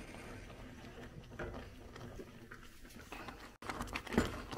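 Silicone spatula stirring thick vegetable puree in a pot: soft scraping with faint scattered taps, then louder, sharper taps and scrapes after a brief break about three and a half seconds in.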